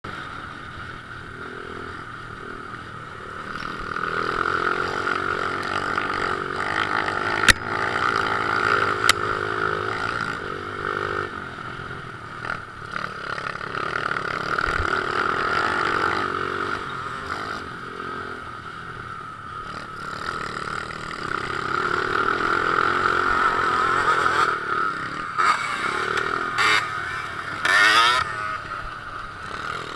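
Pit bike engine running as the bike rides a gravel dirt track, heard from a helmet camera, its level swelling and easing with the throttle. Two sharp knocks come early on, and near the end a second dirt bike's engine revs up and down as it pulls alongside.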